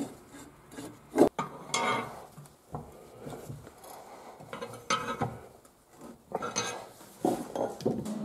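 Steel pieces clinking, knocking and scraping against a square steel tube and a wooden workbench as they are handled and fitted, with a few sharp metal knocks, the loudest about a second in.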